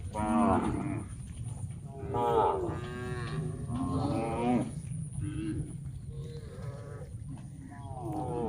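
Several cattle mooing, one call after another, with about six separate moos of differing pitch over a steady low rumble.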